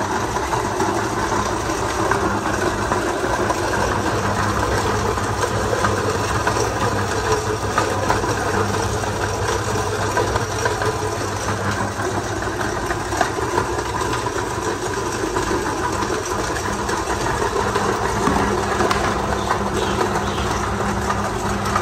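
Cast-iron No. 32 meat grinder, belt-driven by an electric motor through two belts, running steadily under load as it grinds fish heads and bones: a constant motor hum with an irregular crackle from the auger.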